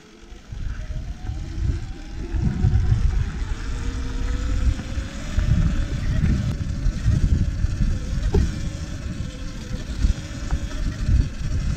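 Sur-Ron electric off-road bike accelerating on a dirt track: a thin motor and drivetrain whine rises in pitch over the first half as speed builds, then holds steady, under a heavy, gusty wind rumble on the microphone.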